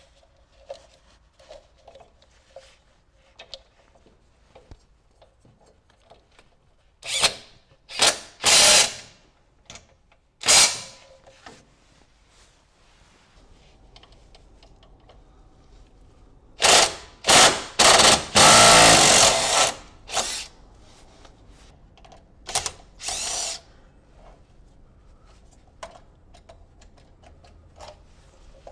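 Cordless impact driver run in a series of short bursts, tightening the mounting bolts of new flat idler pulleys on a mower deck. There are two clusters of bursts, the longest lasting about a second and a half midway, with small clicks and handling of the tool between them.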